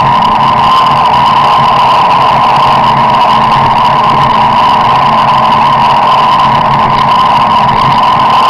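Car cruising at steady speed, its engine and road noise heard from inside the cabin as a loud, unchanging drone.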